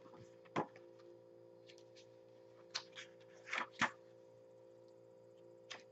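A few light clicks and taps of small items being handled, over a faint steady hum.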